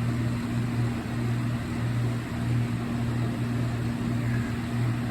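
Steady low electrical hum that pulses slightly in level, with no clicks or alarm tones.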